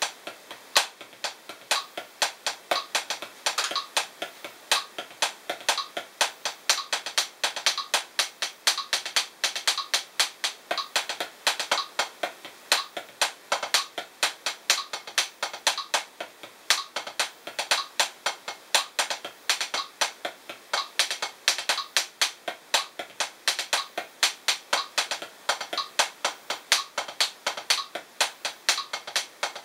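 Los Cabos 7A hickory drumsticks striking a Drumeo P4 practice pad in a steady stream of sharp taps, playing the drag paradiddle #2 rudiment (paradiddles with drag grace notes) at 60 bpm in eighth and sixteenth notes. Accented strokes stand out above the softer ones.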